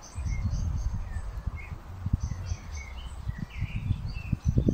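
Wind buffeting the microphone in uneven low gusts, with small birds chirping in short, scattered calls.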